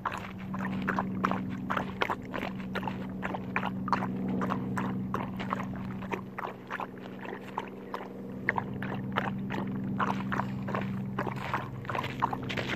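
A husky puppy lapping water from a collapsible silicone bowl: quick wet laps, about three or four a second. A steady low hum runs underneath.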